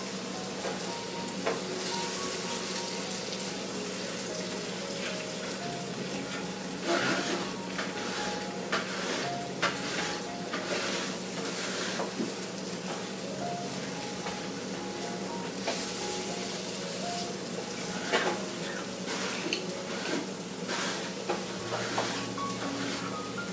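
Eggs and chopped tomatoes sizzling steadily in a frying pan as a wooden spatula stirs them, with occasional sharper scrapes and taps of the spatula against the pan.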